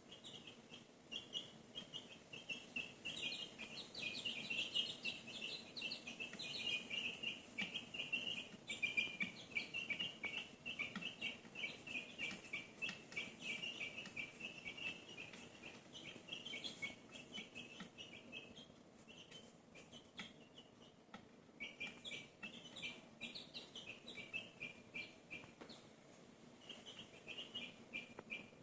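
Birds chirping faintly: a rapid, continuous run of short high peeps, several a second, thinning out for a few seconds past the middle before picking up again.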